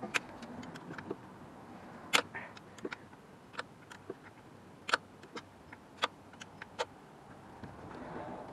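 Irregular sharp metallic clicks and taps of hand tools on the alternator's mounting bolts, a few every couple of seconds, the loudest about two seconds in.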